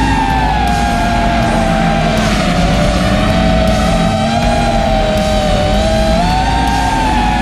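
Heavy rock background music over the high-pitched whine of an FPV racing quadcopter's motors, its pitch wavering up and down with throttle.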